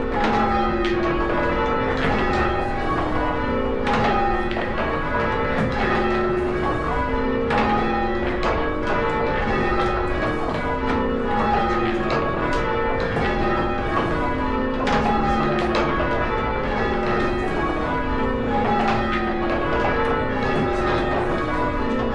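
Six church bells rung full circle in English change-ringing style, each bell striking in turn in a steady repeating sequence. The strokes follow close on one another and their ringing tones overlap into a continuous peal.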